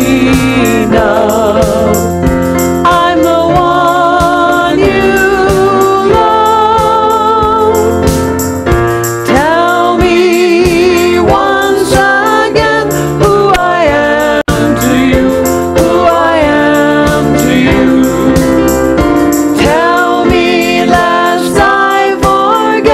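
A woman singing a solo sacred song with a wide vibrato, accompanied by keyboard.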